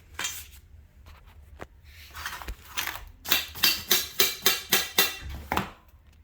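Tapping an adjustment-screw insert into the end of a storage-rack pole: a few scattered knocks, then a quick run of about nine sharp taps, roughly three a second.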